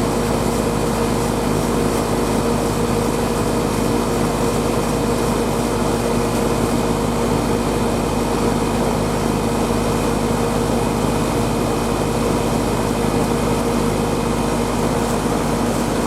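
Air conditioning condensing unit running steadily, its compressor and condenser fan giving an even hum over fan noise. It is running on a freshly replaced capacitor, with the refrigerant pressures settling back toward normal.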